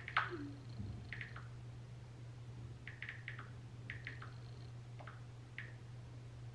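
Faint taps and clicks of typing on a smartphone, in short runs of a few strokes each, with one sharper click near the start, over a steady low hum.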